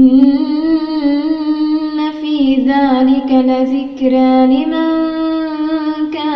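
A woman chanting Quran recitation (tajweed) in one long melodic line, with held notes and ornamented turns in pitch that run on without a break.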